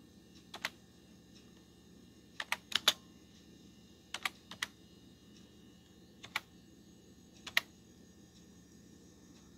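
Computer keyboard keys pressed in short, sparse groups of two to four clicks, with pauses between them, as text is typed slowly by hand.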